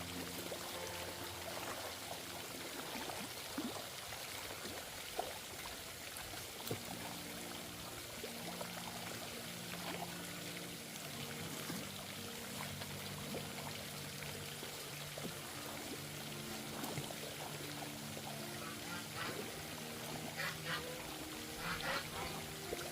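Steady rush of flowing, pouring water under soft background music with a slow melody.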